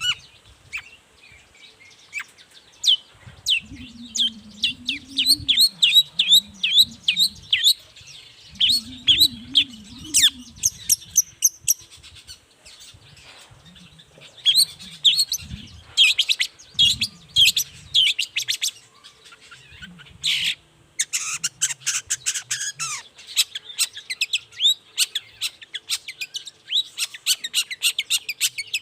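Long-tailed shrike (cendet) singing: fast runs of short, high, downward-slurred notes and buzzy chatter, in bursts with brief pauses. A faint low wavering sound runs underneath during the first half.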